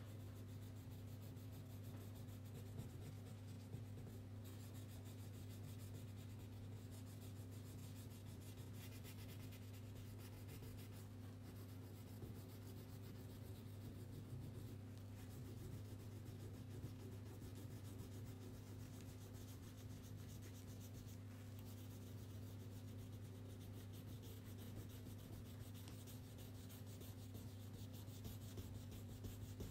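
Crayon scribbling on paper in quick back-and-forth strokes as leaves are coloured in, faint, over a steady low electrical hum.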